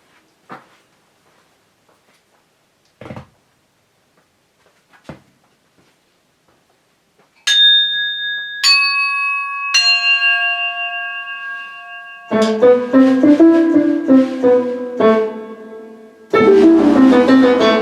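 Electric keyboard playing: three ringing bell-like notes, each lower than the last, then piano chords from about twelve seconds in, filling out with a bass line near the end. A few soft knocks come before the first note.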